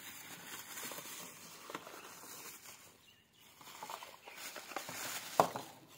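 Thin plastic bag rustling and crinkling as a hand digs a charger out of it. A sharper click comes about five and a half seconds in.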